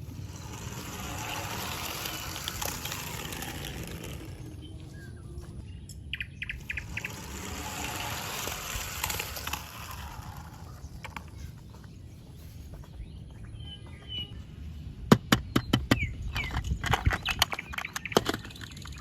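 Plastic packaging rustling in two stretches, then a quick run of sharp clicks and clacks near the end, like toy parts knocking together as they are handled.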